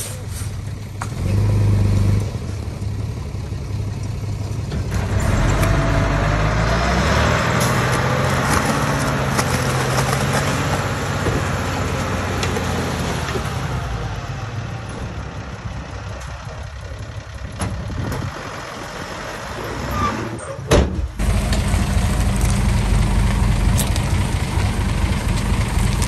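Komatsu D31P bulldozer's diesel engine running under working load, rising and falling in level. Near the end it breaks off sharply and comes back louder and steadier.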